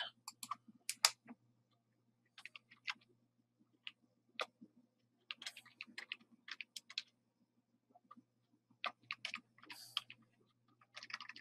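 Computer keyboard being typed on: faint, irregular runs of key clicks with pauses between words, over a faint steady low hum.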